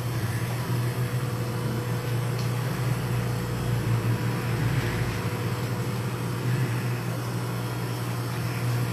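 Steady low mechanical hum of running store equipment, with a faint steady higher tone above it and a brief low rumble in the middle.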